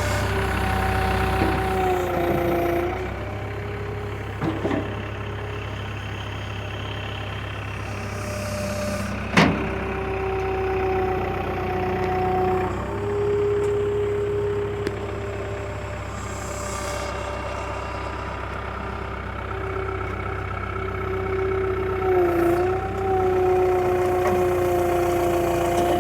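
Backhoe engine running steadily, its pitch shifting up and down as the machine works. A sharp metallic clank about nine seconds in, with a few lighter knocks.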